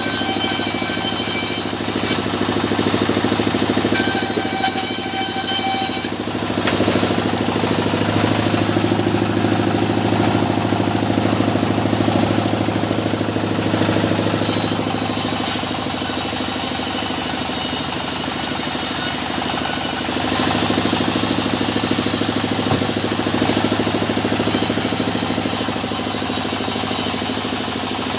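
Small sawmill running steadily: a low engine drone under the high hiss and whine of the saw working through mahogany.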